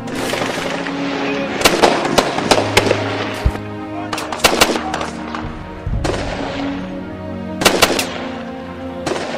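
Gunfire in several short rapid bursts over dramatic background music.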